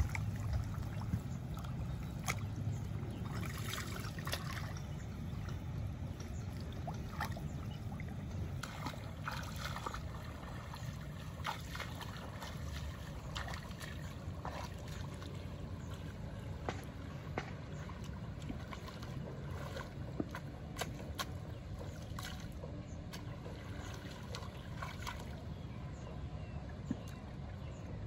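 Hand-pushed rice paddy weeder worked through flooded mud: water sloshing and splashing, with many short scattered clicks and splashes over a steady low rumble.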